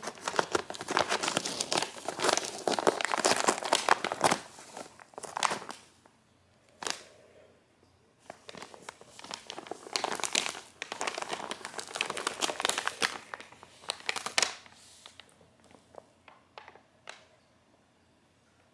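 Brown paper shopping bag crinkling and rustling as a cat squirms and crawls around inside it: a long spell of dense crinkling, a short pause, a second long spell, then only scattered crinkles near the end.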